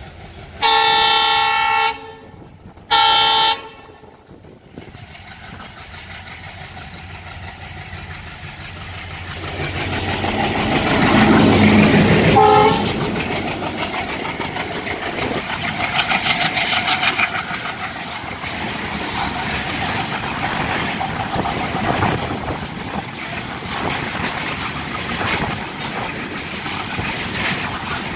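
Indian Railways diesel freight locomotive sounding its air horn in two blasts, a long one then a short one, then coming closer and running past loud with a brief horn toot as it goes by. Loaded coal wagons follow, rolling past fast with a steady clatter of wheels over rail joints.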